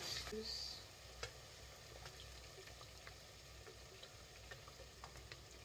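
Butter sauce in a stovetop pot sizzling faintly, with scattered small pops and ticks, stirred with a wooden spoon.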